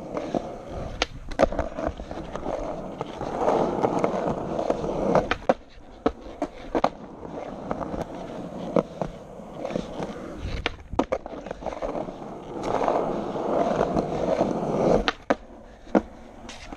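Skateboard wheels rolling on a concrete sidewalk: a rolling rumble that swells twice and fades between, with sharp clacks scattered throughout.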